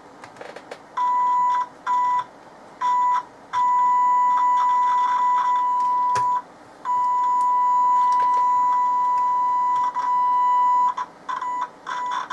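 Steady test tone from the transistor radio's loudspeaker cutting in and out: a few short bursts, two long stretches, then choppy bursts near the end, with a few faint clicks. The dropouts point to the faulty output coupling capacitor, which the repairer at first takes for a dry joint and later finds to be open-circuit inside.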